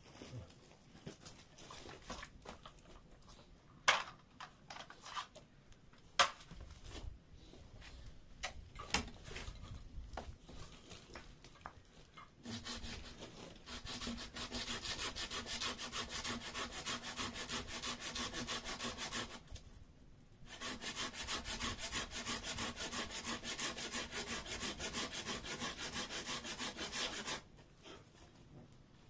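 Hand saw cutting wood in two long runs of steady back-and-forth strokes, the first starting about twelve seconds in and a short pause near twenty seconds. Before the sawing, scattered knocks and clatter of wood being handled.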